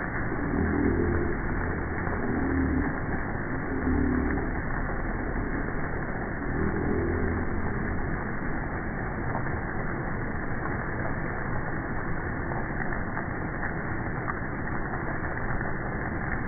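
Heavy rain falling, a steady even hiss through a narrow-band CCTV microphone, with a few short low sounds in the first eight seconds.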